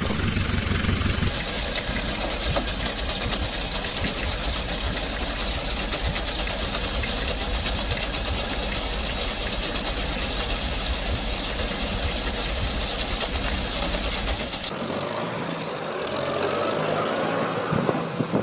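Tractor-pull engine running hard at full throttle, a loud steady noise. The sound changes abruptly about a second in and again near the end.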